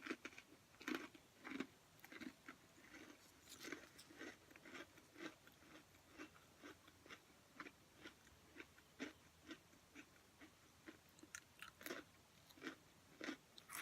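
Close-up chewing of very thin, light and crispy pretzel crackers: a steady run of small, soft crunches, with a few sharper crunches near the end.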